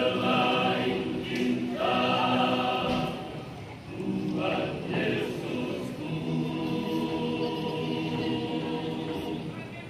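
Male vocal group singing a spiritual song in unaccompanied close harmony, in the Sangihe masamper choral style. The voices hold sustained chords in phrases, with short breaks between them.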